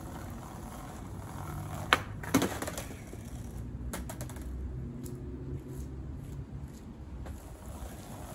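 Skateboard on pavement: two sharp clacks of the board about two seconds in, then a run of lighter clicks and clatter as it rolls along the path.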